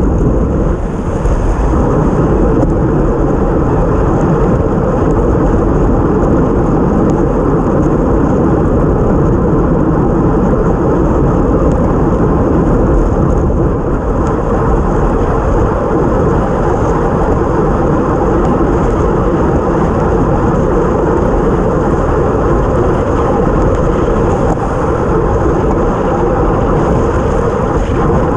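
Steady loud rush of wind buffeting the microphone of a bike-mounted action camera at time-trial speed, mixed with tyre noise on a wet road.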